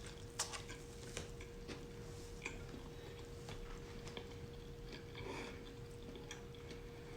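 A person chewing a fried chicken sandwich, with faint scattered mouth clicks and soft smacks over a steady faint hum.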